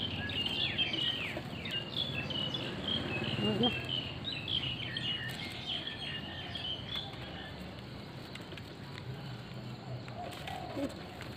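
Small birds chirping: many short, quick calls that thin out about seven seconds in, over a low steady hum.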